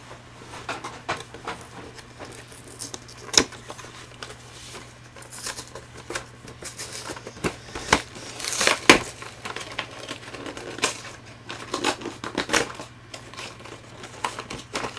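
Cardboard Pokémon TCG collector box and its plastic-wrapped contents being handled and opened: scattered clicks, taps and short rustles, with a sharp click about three seconds in and louder rustling around the middle and again near the end.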